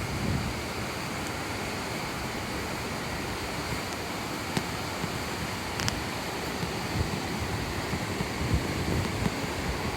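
Steady rushing roar of the Shomyo River and Shomyo Falls, with wind buffeting the microphone in low gusts that grow stronger in the second half.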